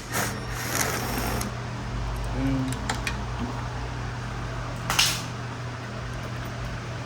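Steady hum of an electric fan, with a few light metallic clicks and clinks of hand tools working on a bolt in the engine bay, the sharpest about five seconds in.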